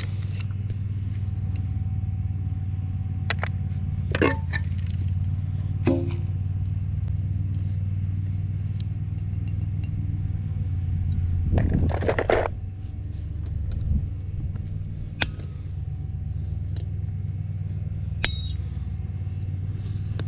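An engine idling steadily, with scattered clinks and scrapes of metal hand tools being handled and put into a toolbox. A longer rustling scrape comes about twelve seconds in, and a metal clink that rings briefly comes near the end.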